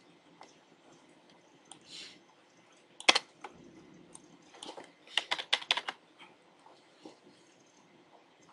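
Typing on a computer keyboard: scattered single key presses, a sharp one about three seconds in, then a quick run of keystrokes between about four and a half and six seconds in.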